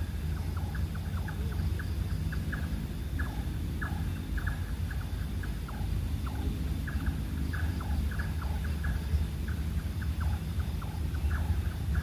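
Many short, squeaky chirps from small animals or birds, several a second at irregular spacing, each dropping quickly in pitch, over a steady low rumble.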